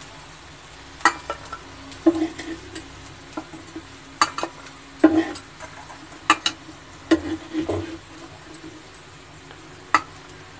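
Metal spatula scraping and knocking on a flat tawa as fried raw banana slices are lifted off, about eight sharp strokes at irregular intervals. The oil under the slices sizzles faintly throughout.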